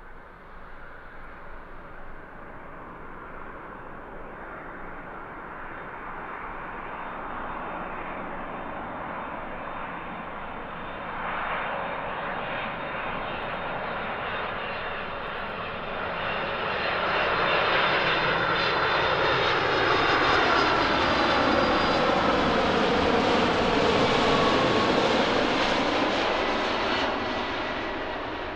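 Boeing 747-400 freighter's four jet engines on final approach, a roar that grows steadily louder as the plane nears and is loudest in the last third. As it passes, its whining tones slide down in pitch.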